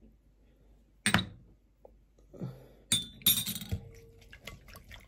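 A utensil clinking against a bowl: a few sharp clinks with short ringing, then quick light repeated clicks near the end as eggs are beaten in the bowl.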